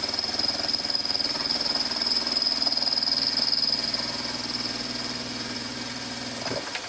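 Vertical milling machine running, its cutter taking a light cut off the end of a conrod, with a steady high whine over a low hum. The machine stops about six and a half seconds in.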